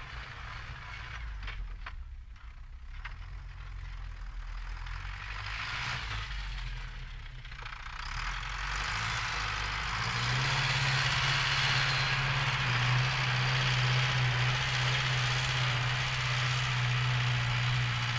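Zetor Forterra 115 tractor's turbo-diesel engine running under load while pulling a cultivator. A steady drone grows louder as the tractor draws near and stays loudest from about ten seconds in.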